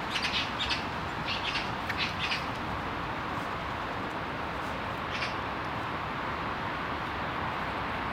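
A bird calling in a quick series of short, high notes during the first two and a half seconds, with one more call about five seconds in, over a steady background hum.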